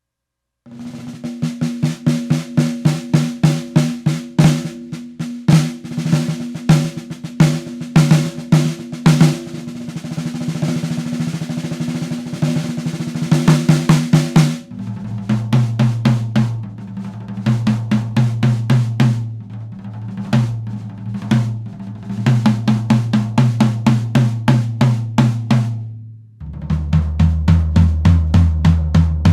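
1970s Pinguim drum kit sound-checked one drum at a time. First the 13x9" rack tom is struck repeatedly and then rolled. About fifteen seconds in, the lower 16x16" floor tom is played, and near the end the deep 22x14" bass drum is struck in steady beats.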